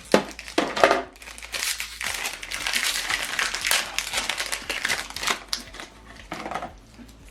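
Plastic packaging crinkling and crackling in the hands as an HP 305 tri-colour ink cartridge is unwrapped.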